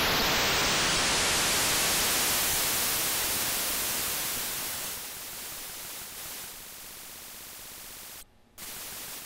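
Digital noise from a 4006 shift-register noise module with its clock turned up very high: a dense hiss with a whine rising out of hearing in the first second, growing quieter and thinner from about three seconds in, with a short dropout near the end. At this clock rate the shift register's repeating cycle can be heard in the noise, the sign that it is pseudo-random rather than true random.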